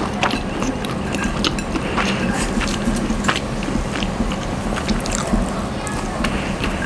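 Wooden chopsticks clicking and scraping against a ceramic plate while stirring and lifting instant fried noodles, with scattered sharp clicks and some chewing.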